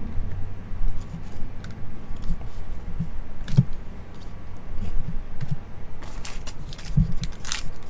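Trading cards being handled, sliding and tapping against each other with small clicks and scrapes, over a steady low hum. About six seconds in, a denser crinkly rustle begins as a foil card pack is picked up.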